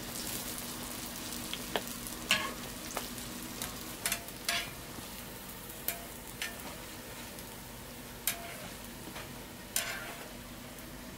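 Hotteok deep-frying in a fryer full of hot oil, a steady sizzle. Scattered sharp metal clinks from tongs and utensils striking the steel fryer and perforated rack cut through it, the loudest a little over two seconds in.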